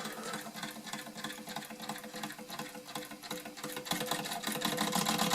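Wilesco D455 toy steam engine running on steam, a fast, even mechanical ticking clatter with a steady hum under it, a little louder about four seconds in.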